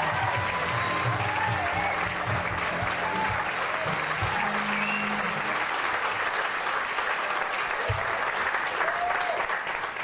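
Audience applauding at the end of a stage musical number, with a few voices calling out. The song's accompaniment music plays under the applause and stops about halfway through.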